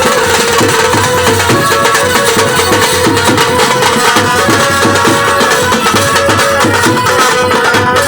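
Loud Indian folk music with tabla-style drumming under steady held melodic tones.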